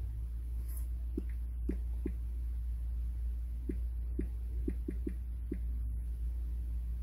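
Nine short, soft taps on a smartphone's on-screen numeric keypad, one for each digit of a phone number being typed, in two quick runs of four and five. They sit over a steady low hum.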